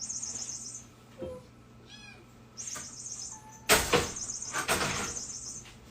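Kittens mewing in short, high calls, with a couple of loud bumps or rustles about two thirds of the way through.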